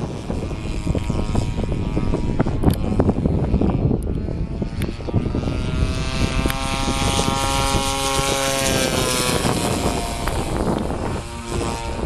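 Engine and propeller of a large radio-controlled Yak 54 aerobatic model plane, held in a hover, with gusty wind buffeting the microphone. About halfway through, the engine note climbs and holds as the throttle is worked, then eases back near the end.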